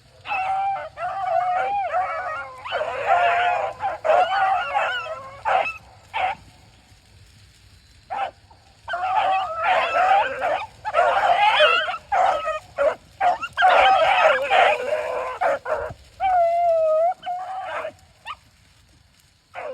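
Beagles baying as they work a scent track: long runs of overlapping bawls and yelps, with a break of about three seconds near the middle.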